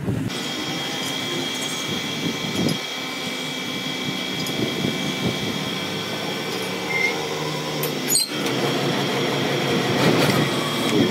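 Large engine lathe running, spinning a heavy steel trolley tube in its chuck: a steady mechanical hum with a high whine from the drive.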